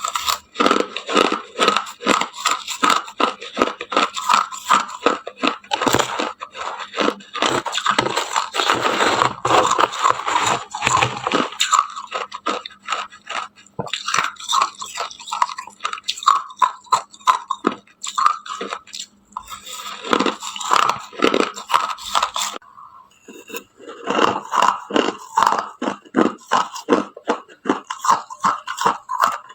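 Ice being bitten and chewed close to the microphone: rapid crunching strokes in dense runs, broken by a few short pauses.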